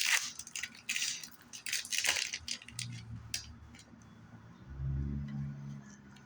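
Foil booster-pack wrapper of a Pokémon card pack crinkling and crackling as it is pulled open and handled, a quick string of sharp crackles over the first few seconds that then dies down.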